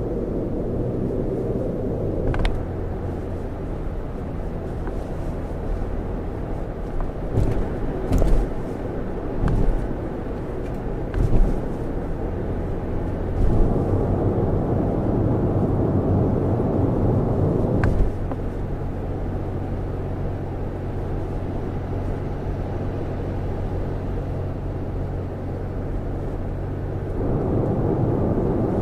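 Cabin road noise of a Lexus RX 450h hybrid SUV driving at speed: a steady low rumble of tyres on the road. A handful of sharp knocks come through in the first half, and the rumble grows louder for a few seconds in the middle and again near the end.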